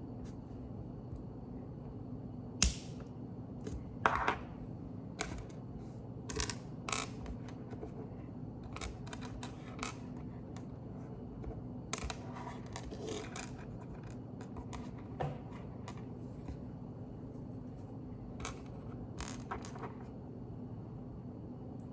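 Plastic Lego pieces clicking and tapping as bricks are handled and pressed together, in irregular sharp clicks with a few louder snaps.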